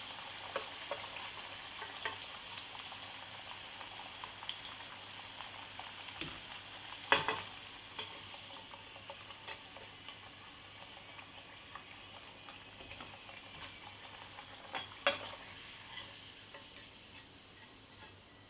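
Potato slices sizzling in hot oil in a frying pan, the sizzle slowly getting quieter. A few sharp clinks of a utensil against the pan, loudest about seven seconds in and again near fifteen seconds, as the lightly coloured slices are lifted out one by one.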